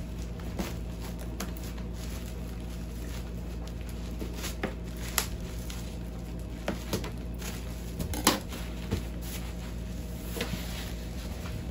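Scissors snipping and cutting through plastic stretch wrap and bubble wrap on a cardboard box, with plastic crinkling and irregular sharp clicks and snaps, the loudest about five and eight seconds in, over a steady low hum.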